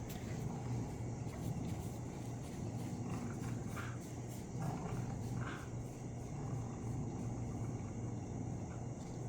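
Dogs growling low and continuously while tugging on a toy, in play rather than aggression.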